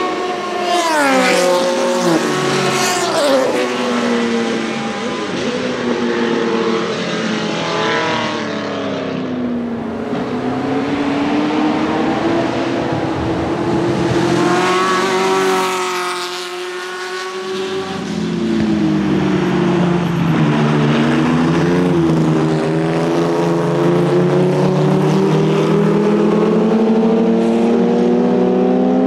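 Historic racing car engines passing one after another, their notes rising and falling with gear changes. About midway a Ford GT40's V8 rises and then drops away as it goes by. Near the end the engines climb steadily under acceleration.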